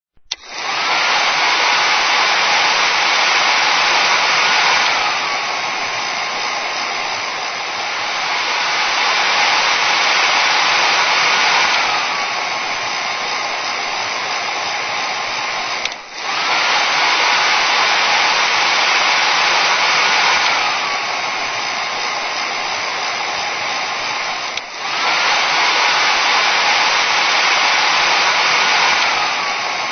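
Electric hair dryer switched on and running, a steady rush of blown air with a motor whine. Every few seconds the whine glides down and the sound gets quieter, then it rises back up, with two brief dips in the second half.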